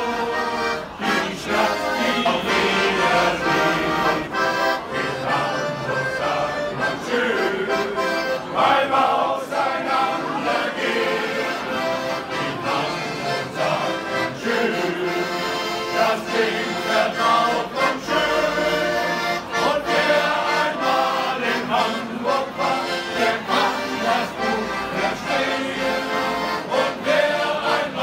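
Men's shanty choir singing a sea shanty to accordion accompaniment, without a break.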